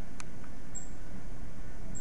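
Two brief, very high-pitched chirps from small birds, one near the middle and one at the end, over a steady low outdoor rumble, with a single sharp click just after the start.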